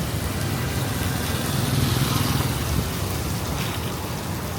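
Heavy rain falling steadily, with a motor vehicle passing that swells and fades around two seconds in.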